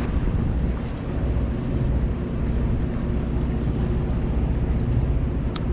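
Steady low rumble of a party fishing boat's engine running, with a short click near the end.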